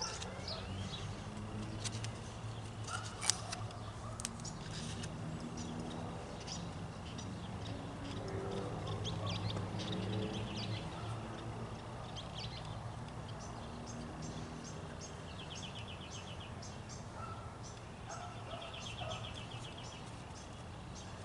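Birds chirping and trilling, with a few rapid high trills late on, over a steady low hum that swells about halfway through and then eases.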